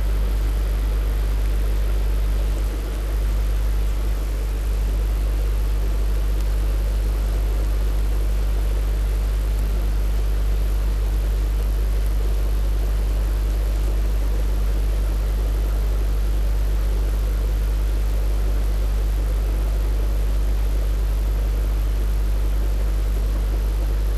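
A steady low electrical hum with an even hiss over it, unchanging throughout.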